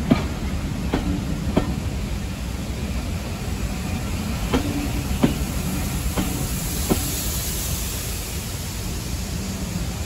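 Railway passenger coaches rolling past close by: a steady rumble with sharp clicks, often in pairs, as the wheels cross rail joints. A hiss of steam from beneath the coaches swells about two-thirds of the way through.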